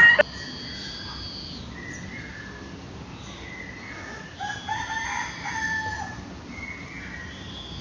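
A rooster crowing once, a call of about a second and a half starting about four and a half seconds in. Thin high whistle-like calls come and go around it.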